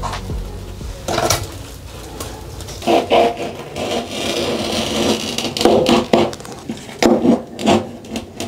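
Old caulk being scraped off the aluminium track of a shower door with a hand-held caulk scraper: a series of short, irregular scraping strokes with a few sharper knocks.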